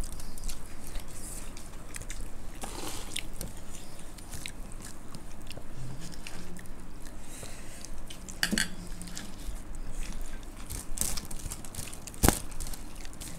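Several people eating by hand, chewing and crunching puffed rice (murmura) mixed with crisp fried namkeen. Scattered sharp crunches stand out, the loudest about twelve seconds in.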